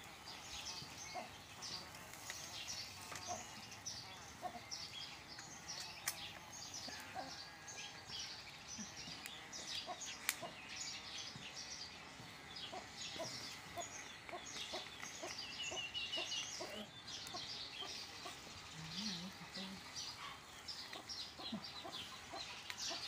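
Backyard chickens clucking amid a dense, continuous chatter of small high chirps.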